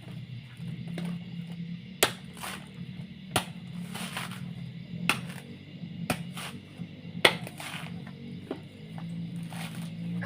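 A series of sharp, crisp snaps at uneven intervals, about one a second, over quiet background music.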